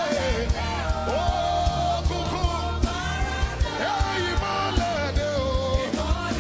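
Live gospel worship music: a band with drums and bass, and a voice singing long held notes that glide between pitches.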